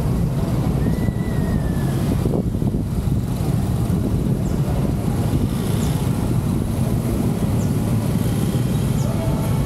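Car driving through town traffic: a steady low road and engine rumble, with a few faint, brief pitched sounds above it.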